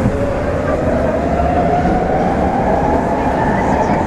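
Brussels metro train heard from inside the car, pulling out of a station and picking up speed. The traction motor whine rises steadily in pitch over the loud rumble of the running train.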